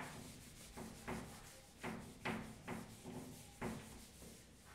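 Whiteboard eraser wiping a whiteboard: faint, short rubbing strokes, about two a second.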